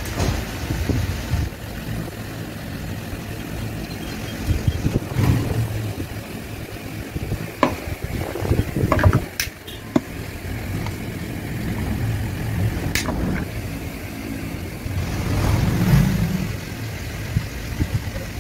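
Electric fan humming steadily, with a few sharp clicks over it.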